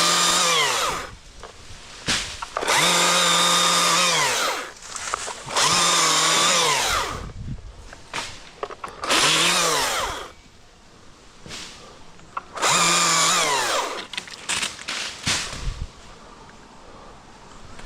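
Two-stroke chainsaw throttled up in five short bursts of one to two seconds each, the pitch dropping off as the trigger is released, and idling quietly in between.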